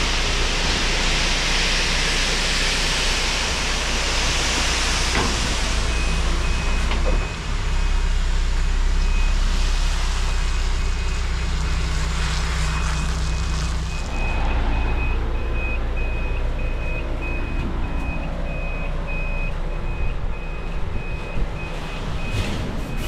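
Diesel engine of a heavy construction vehicle running steadily, with a rushing noise for the first few seconds. From about six seconds in, its high-pitched reversing alarm beeps at an even rate.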